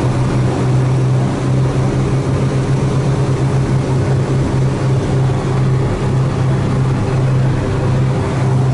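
Light twin-engine airplane's engines and propellers running steadily with a low, even drone, heard from inside the cockpit as the plane taxis.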